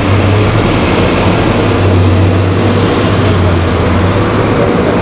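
Bus engine running close by, a steady low drone.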